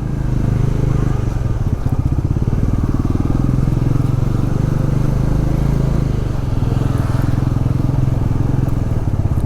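Motorcycle engine running steadily as the bike is ridden, its pitch rising and falling slightly a few seconds in.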